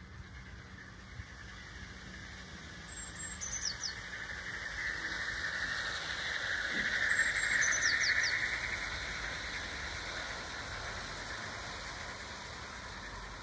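OO gauge model train, a Princess Royal class locomotive hauling coaches, running along garden track. Its steady wheel-and-motor noise builds to a peak about eight seconds in, then eases off. A bird gives a short high call twice.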